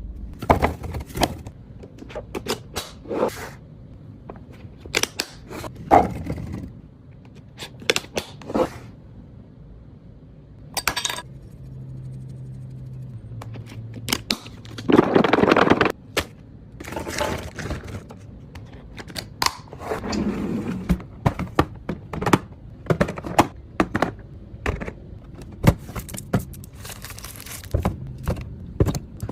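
Items and containers being handled and set down while a fridge is restocked: many clicks, knocks and thunks, with bursts of rustling or scraping, loudest about halfway through.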